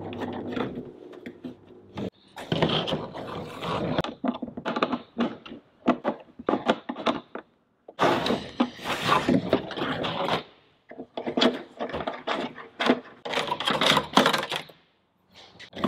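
Irregular knocks, scrapes and clicks of hands working on an empty plastic diesel tank: the tank being turned and handled, a wire pulled through it, and the pickup fitting's nut tightened with a spanner.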